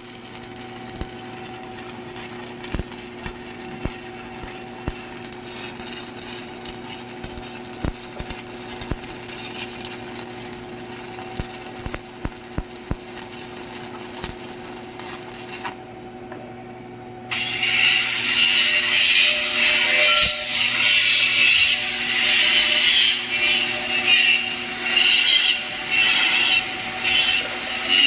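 Steady electrical hum with scattered clicks, then, about two-thirds of the way in, a much louder crackling, hissing sound that comes in uneven surges, typical of a stick-welding arc burning.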